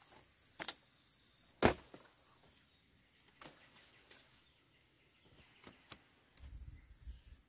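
A steady high insect trill that stops about three and a half seconds in, with scattered sharp clicks and knocks, the loudest about a second and a half in. A low rumble comes near the end.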